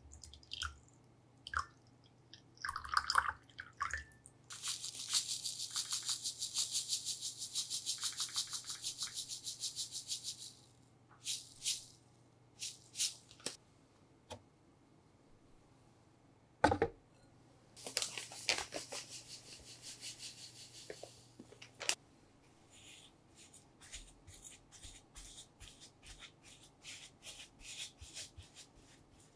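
Close-up kitchen prep sounds: a thin stream of water poured into a glass bowl, then several seconds of fast, even rhythmic ticking and a single sharp knock. Near the end a silicone spatula presses and scrapes cream cheese and sugar against a glass bowl in soft, repeated ticks.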